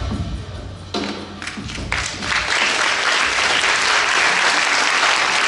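Dance music ends with a couple of sharp accented final beats, and about two seconds in an audience breaks into steady applause.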